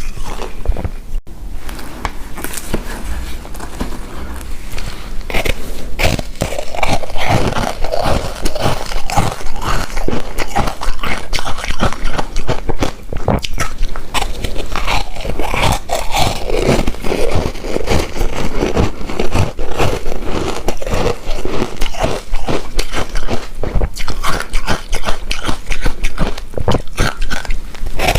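Close-miked chewing and biting of a chewy coconut rice cake, with a constant stream of quick, irregular wet mouth clicks and smacks.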